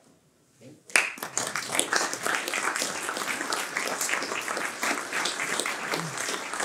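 Audience applauding. After a brief hush, the clapping starts suddenly about a second in and carries on steadily.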